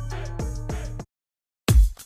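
Background music: a hip hop track with heavy bass and falling bass slides cuts off about a second in. After a brief silence, a new dance track starts with loud, evenly spaced kick drum beats.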